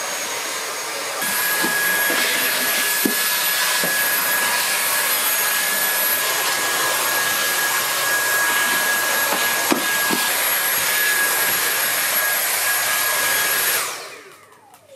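Dyson cordless stick vacuum running steadily with a high whine. It gets a little louder about a second in. Near the end it is switched off and the motor winds down with a falling whine.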